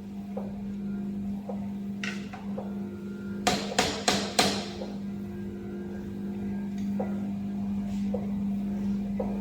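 A hammer striking a screwdriver held against the drive-shaft sleeve of a band sealing machine: a lighter knock about two seconds in, then a quick run of about four sharp metal taps. This is the sleeve being knocked down so the drive shaft sits centred, the fix for the machine's abnormal noise. A steady low hum runs underneath.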